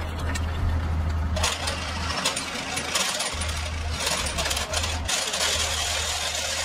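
Steel excavator track chain clattering and rattling link against link as a truck-mounted crane hoists it up off a pile of other chains. The clatter starts about a second and a half in, over the steady low running of the crane truck's engine.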